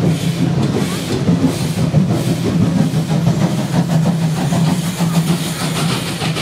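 A hand-pumped rail handcar rolls along the track, its wheels clicking on the rails, over a steady low hum.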